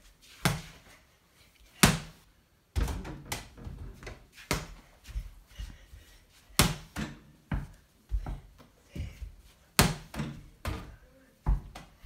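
A small rubber ball thudding against a toy basketball hoop's plastic backboard and rim and bouncing on a hard floor: about a dozen sharp thuds at irregular intervals.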